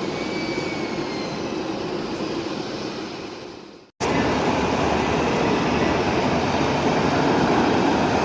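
Jet airliner engines running: a loud steady rush with a faint high whine over it. The sound cuts off abruptly about four seconds in and resumes louder and fuller.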